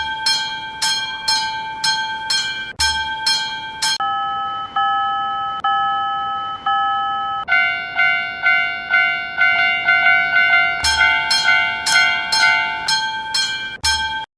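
Railroad crossing warning bells: electronic ding strikes in a steady rhythm, about two to three a second. About four seconds in, the tone changes to a lower, steadier chime pulsing about once a second. Then comes a faster ding at a lower pitch, and near the end the first bell pattern returns.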